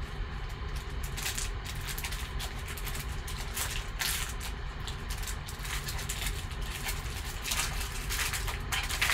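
Foil wrapper of a 2020 Panini XR football card pack crinkling and crackling in irregular rustles as gloved hands tear it open and crumple it, over a steady low hum.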